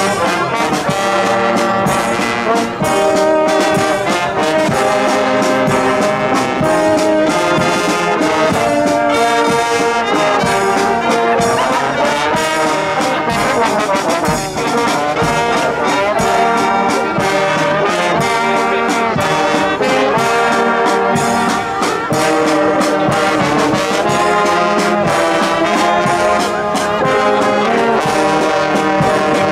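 A Guggenmusik-style carnival brass band playing live at full volume: trombones, trumpets and sousaphones blaring a melody over a steady drum beat.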